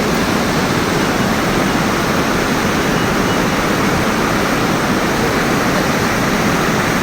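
Heavy flood flow of the Kosi River rushing through a barrage: a loud, steady torrent of water with no let-up.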